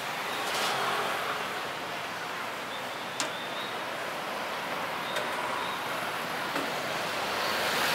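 Busy city street ambience: a steady wash of traffic and crowd noise, with a few short sharp clicks or knocks.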